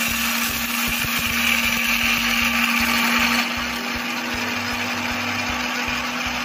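Deepak Ganga 1100-watt mixer grinder running with its small dry-grinding jar, crushing dry split dal into powder: a steady motor hum with the hiss and rattle of the grains, easing a little about three and a half seconds in. The owner calls it nearly noiseless.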